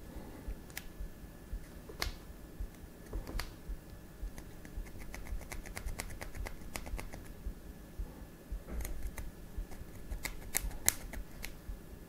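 Wooden toothpick scraping and flicking inside a Nokia 8 phone's USB-C charging port to pick out packed fluff: a run of small irregular clicks and ticks, thickest in the middle and again near the end.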